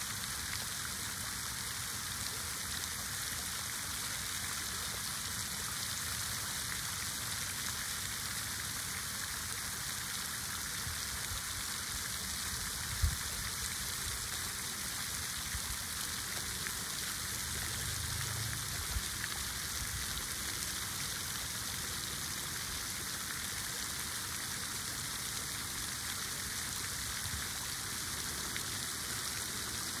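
Steady hiss of running water, with a soft low thump about 13 seconds in and fainter ones near 18 and 19 seconds.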